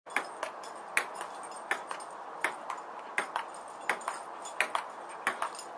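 Ping-pong ball clicking in a steady rally on a table tennis table: a quick pair of sharp knocks about every three-quarters of a second, over a steady background hiss.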